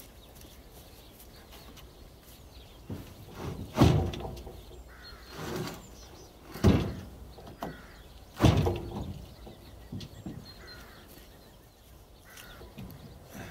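Heavy knocks and thuds of OSB floor panels being pushed and pressed into place on a trailer chassis. There are three loud knocks a few seconds apart, with lighter knocks and scrapes between them.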